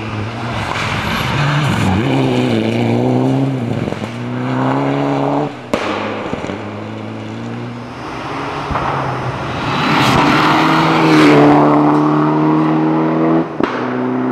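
Rally car engines at high revs on a gravel stage. The pitch climbs and drops with gear changes as the cars pass. The sound changes abruptly twice, about six and thirteen and a half seconds in, where clips are joined.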